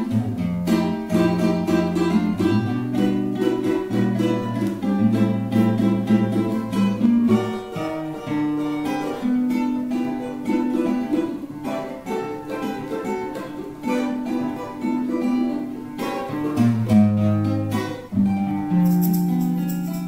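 Cavaquinho and acoustic guitar (violão) playing a choro together: a quick plucked melody over the guitar's bass lines. The music fades near the end.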